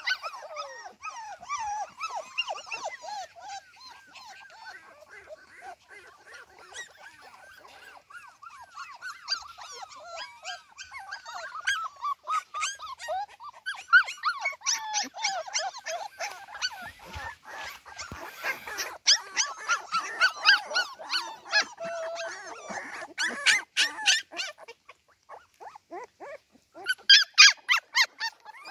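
A litter of Cardigan Welsh Corgi puppies whimpering and squeaking in many short, high cries, which grow louder and sharper into yips near the end.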